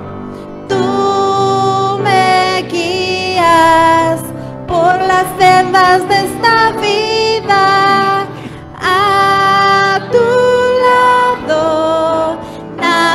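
A woman singing a slow Spanish hymn into a microphone, in long held phrases with short breaks between them.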